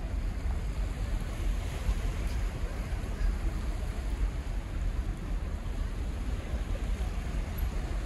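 Wind buffeting the microphone: an uneven low rumble over a soft hiss.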